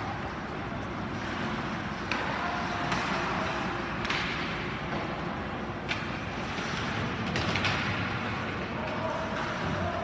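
Ice hockey play in an indoor rink: sharp clacks of sticks on the puck at irregular moments, with skates scraping the ice, over a steady hum of rink noise.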